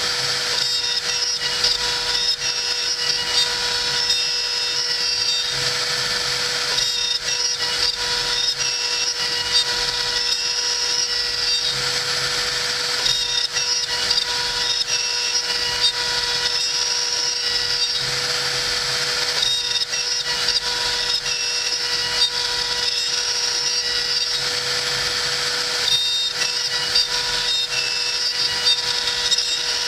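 CNC router spindle running with a steady high whine while its cutter mills a spoked wheel out of hardwood. The cutting noise swells and eases every few seconds as the tool moves along its path.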